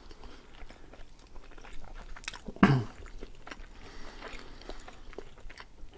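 Close-miked chewing and biting of baked pastry, with many small wet mouth clicks and crackles and one louder sound about two and a half seconds in.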